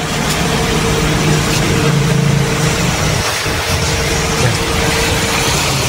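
Mitsubishi Xpander idling while the steering is turned, with a steady clunking from the front suspension under the wheel arch. The mechanic traces the clunk to play in a stabilizer-link ball joint and a loose tie-rod end adjuster.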